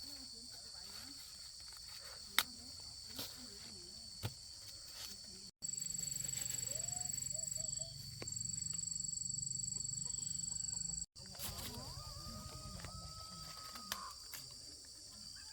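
Outdoor rural ambience of insects, likely cicadas or crickets, keeping up a steady high-pitched drone, with a few short animal calls and scattered clicks. The sound cuts out abruptly twice, and in between there is a louder stretch with a low hum under the drone.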